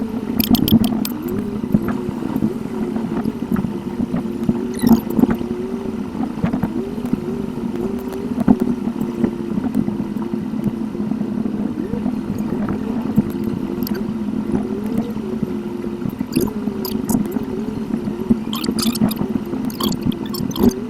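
Car cabin driving sound from a dashcam, sped up eightfold: the engine and road hum sits unnaturally high and steady, with an engine tone that quickly wavers up and down, and scattered short clicks.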